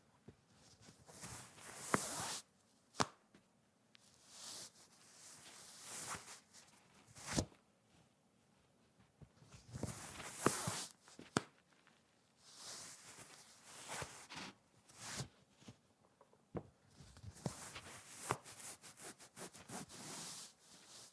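Cotton socks being pulled on and off feet: fabric rustling and swishing in short, irregular strokes, with small sharp snaps of the elastic cuffs.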